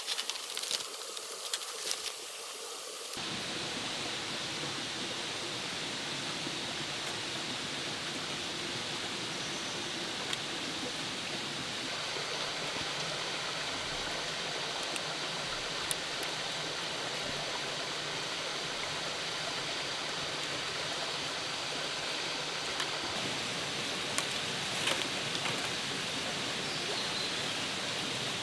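A few sharp clicks and crackles, then, about three seconds in, a steady even rush of running water, like a stream or small waterfall.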